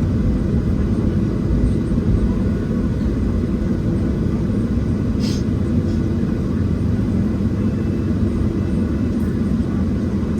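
Steady cabin rumble of a Boeing 737-700 from a window seat: its CFM56-7B jet engines and the airflow make a low, even roar. A brief click comes about halfway through.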